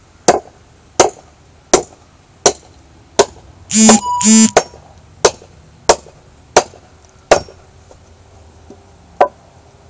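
A machete chopping into a log: about ten sharp, evenly paced strikes, roughly one every 0.7 s, with a gap before a last strike near the end. About four seconds in, a loud harsh double burst with a buzzing tone cuts in between the strikes.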